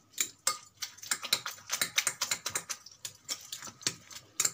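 A metal fork beating eggs with grated potato and chopped greens in a ceramic bowl, tapping against the bowl in rapid, uneven clicks.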